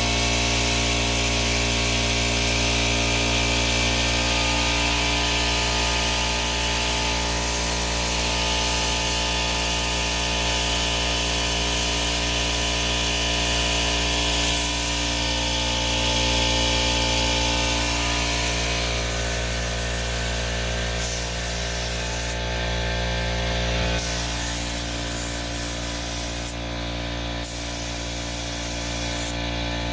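Paint spray gun hissing steadily as paint is sprayed onto a car fender, over a steady machine hum. The hiss cuts out briefly three times in the last third, as the trigger is let go between passes.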